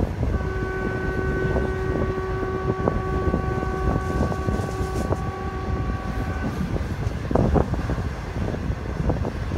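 Passenger train running along the track, a steady rumble heard from the coach window with wind on the microphone. A horn sounds one steady note for about six seconds from just after the start, and a few sharp clicks come later on.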